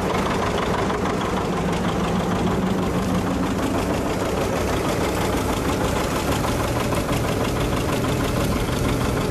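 John Deere 730 diesel's two-cylinder engine running steadily under load, pulling a three-bottom plow through the soil, with an even, rapid firing beat.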